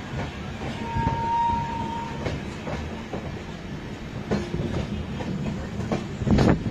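Passenger train coaches rolling round a tight curve, heard from an open coach doorway: a steady rumble with irregular clicks and knocks from the wheels on the track. A brief thin squeal comes about a second in, and a heavy knock near the end.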